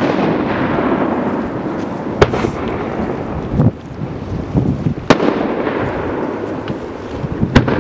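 Aerial firework shells bursting: a sharp bang right at the start, then more about two, five and seven and a half seconds in, with a lighter one between. Each bang is followed by a long rolling rumble.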